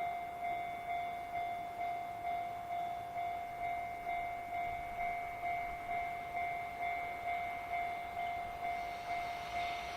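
Japanese railway level-crossing warning bell ringing: an electronic two-a-second "kan-kan" tone that signals a train is approaching. A faint rushing noise rises near the end.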